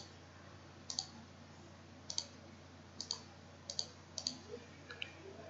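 Computer mouse button clicks: about seven sharp single clicks, roughly one a second, over a faint steady low hum.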